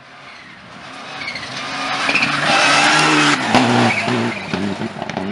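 Rally car speeding past on a gravel stage at full throttle: the engine grows louder as it approaches, with its pitch rising and falling, and tyres spray gravel and dust as it passes. A single sharp crack comes about three and a half seconds in, and the engine keeps running as the car pulls away.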